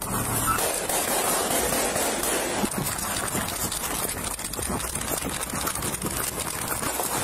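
Steady rustling hiss from a police body-worn camera's microphone as the officer moves on foot, with clothing rubbing over it and faint scuffs mixed in.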